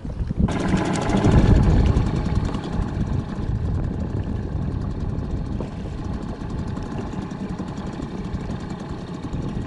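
Boat outboard motor starting up about half a second in, loudest for the first couple of seconds, then settling into steady running.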